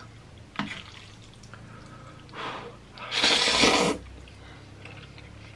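Spicy cheesy ramen noodles slurped into the mouth: a short suck, then a longer, louder slurp about three seconds in.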